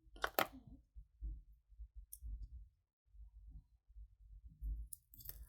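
A few light clicks of costume jewelry being handled, with faint low bumps between: a pair just after the start and more near the end.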